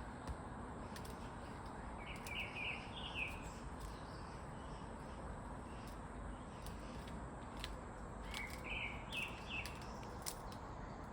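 A small bird chirping in two short runs of quick high notes a few seconds apart, over steady outdoor background noise with a few light ticks.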